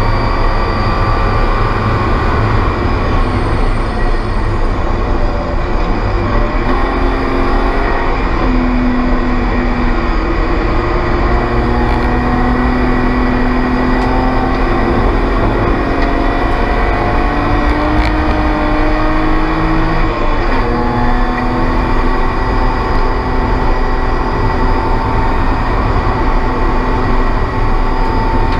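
Spec E36 BMW race car's straight-six engine at racing speed. Its pitch climbs slowly and drops off several times as the driver shifts or lifts for corners.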